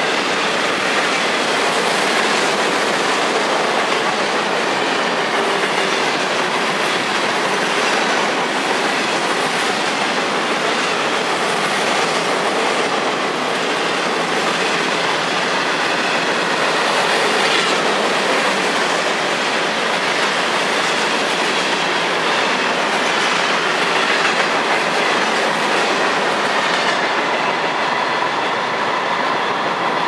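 A freight train's cars rolling past at speed, mixed boxcars and centerbeam flatcars: a steady rush of wheels on rail with repeated clicks over the rail joints. The high hiss eases a little near the end as the last cars go by.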